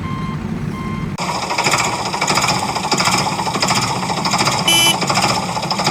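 Backhoe loader sounds: reversing beeps over an engine rumble, then about a second in a loud, fast rattling clatter of the machine working. A short high beep comes near the end.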